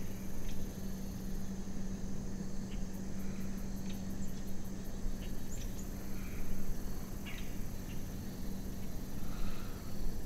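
Evening insects chirring steadily in the marsh, with a run of fast, evenly spaced high ticks in the first few seconds and scattered short bird chirps. A steady low hum runs underneath.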